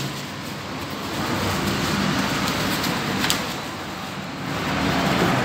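Plastic bubble wrap rustling and crinkling as it is handled and pulled open by hand, with a sharper crackle about three seconds in.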